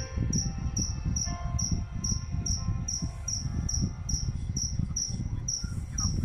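A cricket chirping steadily, about two and a half short high-pitched chirps a second, over a low background rumble.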